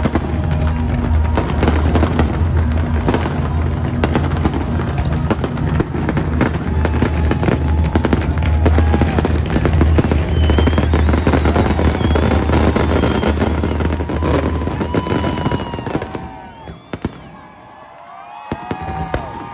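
Fireworks finale: a dense barrage of rapid bangs and crackles from many shells bursting at once, over a continuous low rumble. The barrage drops away sharply about three-quarters of the way through.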